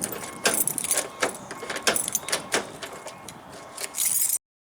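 Keys jangling, with sharp metallic clicks about every half second to a second, as a key is worked in and out of a Ford Ranger door lock. A brief burst of hiss comes near the end.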